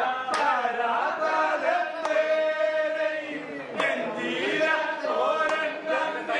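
A chorus of men chanting a song together in unison, with a sharp knock every second or two.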